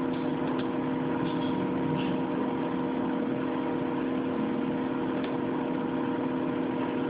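Steady background hum and hiss with a few faint clicks.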